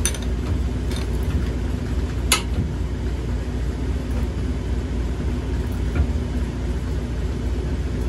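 A steady low mechanical hum with no change in pitch, with a single sharp click about two seconds in and a fainter knock near the six-second mark.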